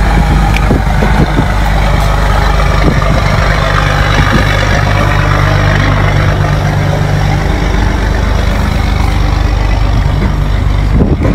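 An engine idling: a steady, loud low drone with an even hum.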